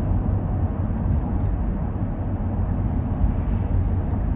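Interior cabin noise of a Ram pickup with a freshly rebuilt Hemi V8 on the road: a steady low rumble of engine and tyres.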